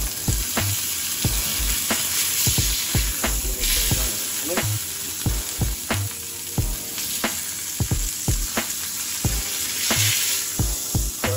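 Ground-beef burger patty searing in a cast iron pan: hot fat sizzling steadily, with frequent sharp pops and crackles.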